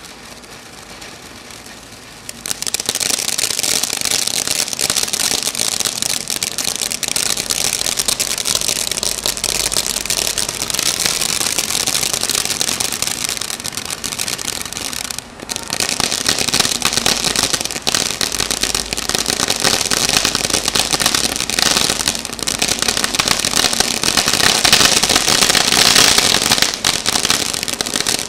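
Black Cat Hobgoblin firework fountain spraying sparks: a loud, dense hiss thick with crackling. It jumps up in loudness about two seconds in, drops out briefly around halfway, and is loudest shortly before it dies down at the end.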